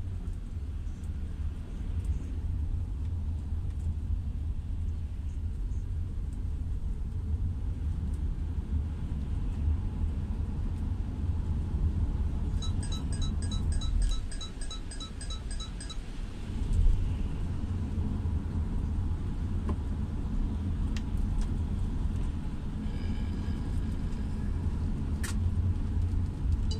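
Car driving through wet city traffic, heard from inside the cabin as a steady low rumble. About halfway through, a quick run of about a dozen short high electronic beeps comes in, close to four a second, lasting some three seconds.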